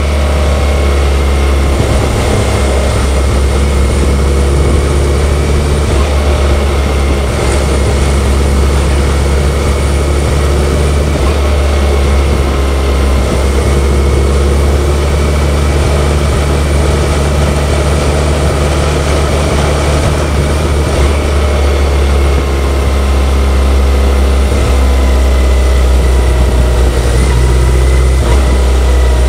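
BMW K1100LT's liquid-cooled inline-four engine running steadily while the motorcycle cruises, with a steady low drone and a hiss of wind and road noise, heard from the bike itself. The level holds even, rising slightly near the end.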